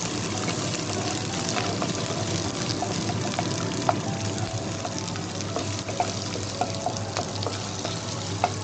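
Chopped onions sizzling in hot oil in a non-stick kadai, freshly added and frying lightly, while a wooden spatula stirs them, giving a few light knocks against the pan.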